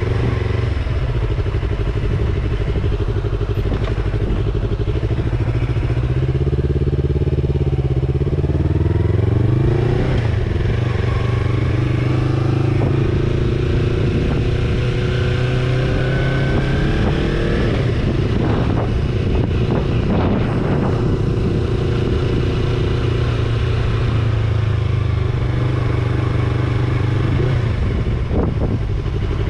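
Motorcycle engine running at low road speed, its pitch rising twice as the bike speeds up and settling back in between. A few knocks come about two-thirds of the way through.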